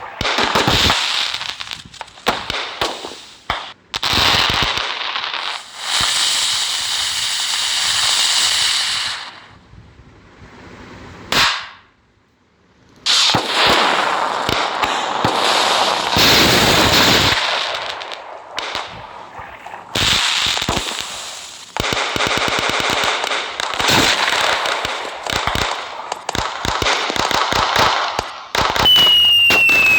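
Diwali firecrackers going off: rapid strings of sharp bangs and crackling, broken by stretches of steady hissing. A short gap falls about twelve seconds in, and a whistle falls in pitch near the end.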